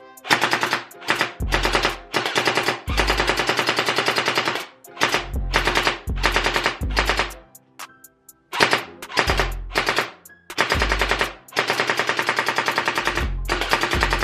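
Battery-powered Unlocx gel blaster firing gel beads on full auto in rapid bursts of about ten shots a second, several bursts in a row with short pauses between them, the beads hitting a cardboard box.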